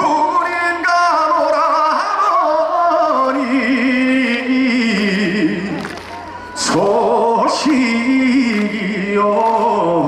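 A man singing a trot song live into a microphone over band accompaniment, holding long notes with a wide vibrato.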